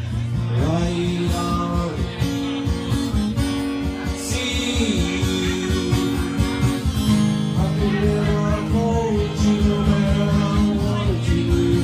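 Acoustic guitar strummed in a steady rhythm, with a voice singing a slow melody over it: a live folk song.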